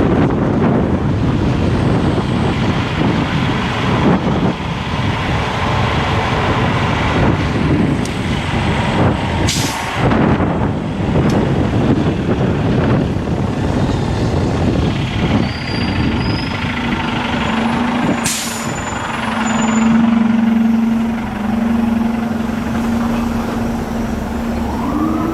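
Wind buffeting the microphone on a moving electric scooter, over street traffic with large vehicles. Two short, sharp hisses come about a third and two-thirds of the way in, and a steady low hum sets in past the middle.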